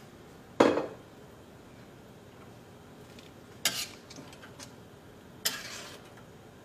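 A metal spoon knocking against a metal cooking pan while stirring sambar: three sharp clanks, the loudest about half a second in, the others near four and five and a half seconds.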